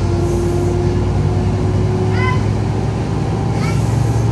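Mercedes-Benz O405G articulated bus's diesel engine running under way, heard from inside the cabin as a steady drone with a hum that rises slightly in pitch. Two brief high-pitched chirps cut in, about two seconds in and again near the end.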